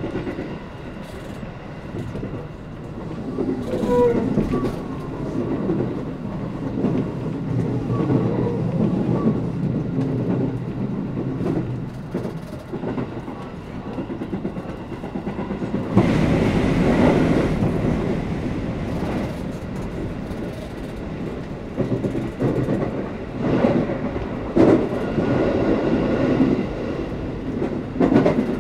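Electric commuter train running at speed, heard from inside the carriage: a steady rumble of wheels on rail with clickety-clack of rail joints. The noise swells into a louder rush for a few seconds about halfway through.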